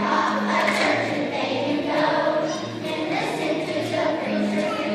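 A choir singing a song, with long held notes near the start and again near the end.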